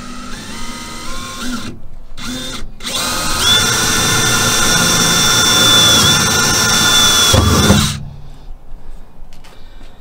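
Cordless DeWalt drill boring pilot holes into the van's metal underbody. A first short run rises in pitch, then a brief stop and a short burst, then a longer steady, louder run of about five seconds that cuts off about eight seconds in with a low thump.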